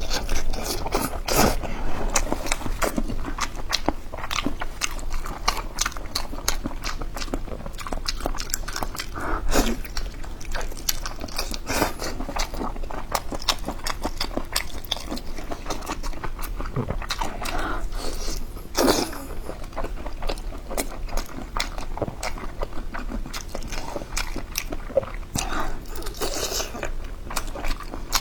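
Close-miked chewing and biting of spicy boneless chicken heads: a dense, irregular run of small clicks with no speech.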